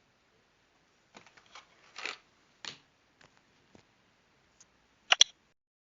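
Light handling noises, a few soft rustles and taps, then two sharp clicks in quick succession near the end.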